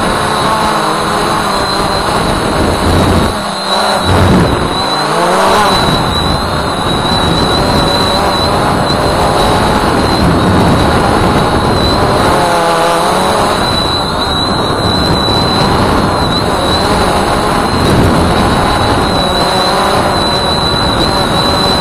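Walkera Voyager 3 quadcopter's electric motors and propellers running steadily in flight, a dense whir with a thin high whine on top. The pitch wavers and glides briefly a few seconds in and again about halfway through as the drone adjusts its flight.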